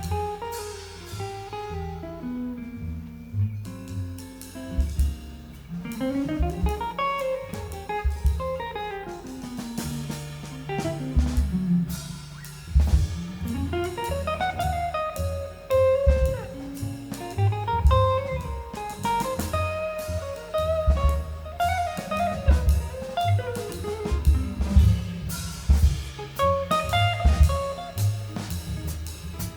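A jazz band playing an instrumental break with no singing: fast rising and falling runs of notes over a bass line and drum kit.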